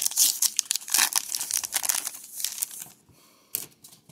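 Wrapper of a Topps Heritage baseball card pack being torn open and crinkled by hand, stopping about three seconds in, with a single click shortly after.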